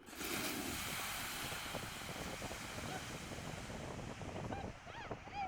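Surf washing on the beach, mixed with wind buffeting the microphone. The rushing noise starts suddenly and thins out near the end, where a voice calls out briefly.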